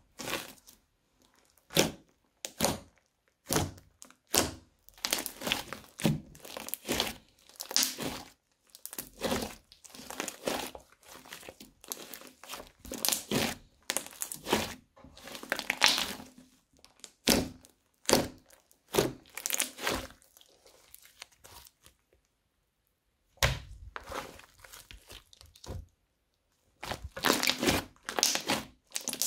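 Crunchy slime being squeezed and pressed by hand, giving a dense, irregular run of crackling, popping crunches with brief pauses.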